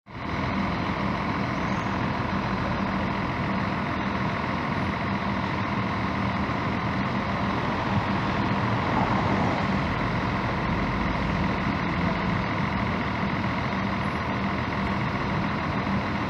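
Diesel bus engine running steadily at an even level, with a constant low hum.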